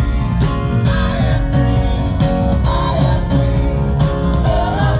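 Background music: a rock or country song with guitar and singing over a steady beat.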